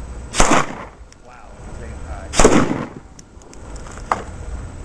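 Two loud gunshots about two seconds apart at a plastic bottle pressurised with dry ice and water, which bursts and is gone, then a lighter crack about four seconds in.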